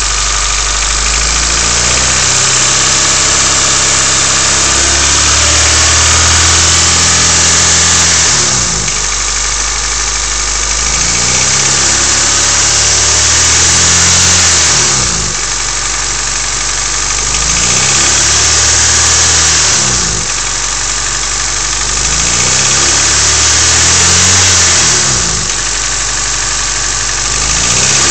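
Honda D15 1.5-litre four-cylinder engine running, revved up and let fall back about four times. It has a noise that the owner cannot place, asking whether it is rod knock or lifter tick.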